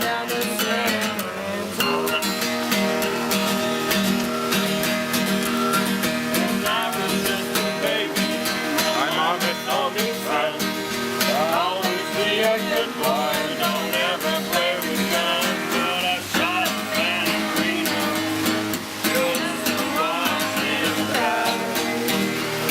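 Acoustic guitar strummed in a steady rhythm, with a wavering melody line over it.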